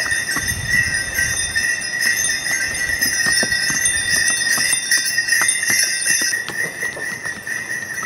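Bells on a horse's harness jingling steadily as it walks, with hooves clopping on stone.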